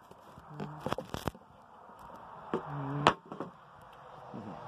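Scattered light clicks and knocks of hands handling things, with two brief low-pitched tones, the first less than a second in and the second near the middle.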